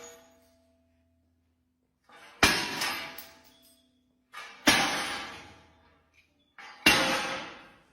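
Three loud strikes about two seconds apart, each preceded by a short lighter sound and followed by a ringing decay of about a second.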